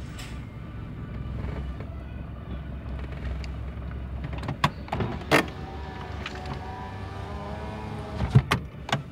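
A car running, heard from inside the cabin as a steady low rumble. A few sharp clicks or knocks come about halfway through and again near the end, with a wavering tone between them.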